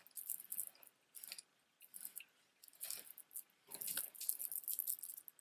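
Stone beads clicking and rattling against each other in short bursts as a multi-strand beaded necklace is handled and turned over.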